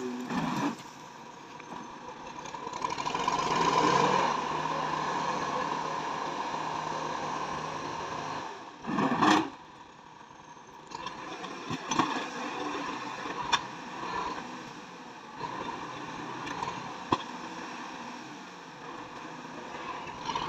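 Massey Ferguson tractor engine running under work, swelling louder for a few seconds early on, with a short loud burst near the middle and a few sharp knocks later.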